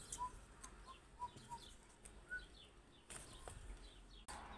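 Faint bird chirps: about six short whistled notes in the first two and a half seconds, then quiet background.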